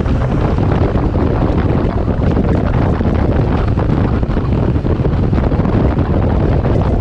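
Heavy wind buffeting the microphone over a steady low engine drone from a BMW R 1200 GS's boxer-twin engine.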